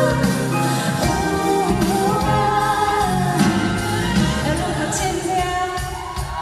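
A woman singing a pop song live into a handheld microphone over instrumental accompaniment, heard through the concert sound system.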